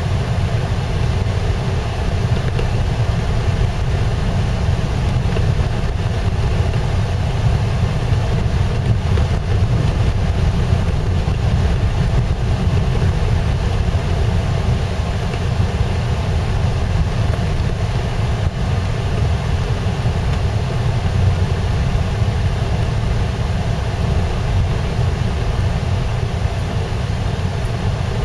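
Steady driving noise heard from inside a car cabin: a low engine and road rumble from tyres running on a snow-covered road, with no change in pace.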